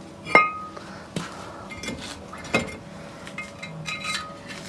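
Metal hand tools clinking against steel parts: a sharp clink with a brief ring about half a second in, then a few lighter clinks and a short run of small metallic taps near the end.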